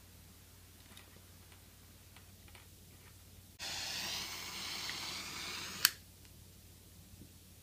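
Butane soldering iron hissing for about two seconds, ending with one sharp click, after a few faint ticks.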